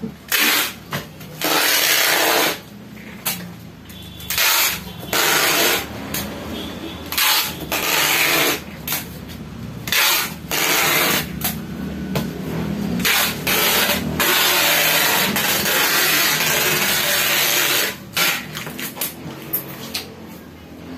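Clear packing tape pulled off its roll with a handheld tape dispenser and pressed onto a cardboard box: a dozen or so rasping pulls, most a second or shorter, one about four seconds long in the second half.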